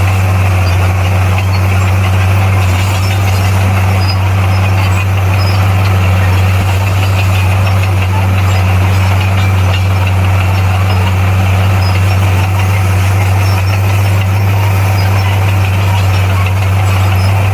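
Heavy earthmoving machine's diesel engine running at a steady speed with a deep, constant drone.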